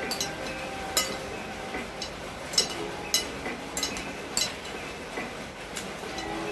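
A metal fork and spoon clinking against a ceramic plate during a meal: about seven short, sharp clinks at uneven intervals.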